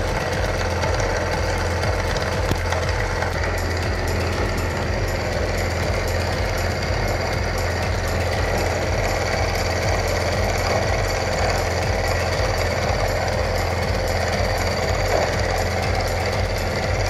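Milling machine end mill cutting into a D6 tool steel blank: a steady machining noise with an even low pulsing rhythm throughout.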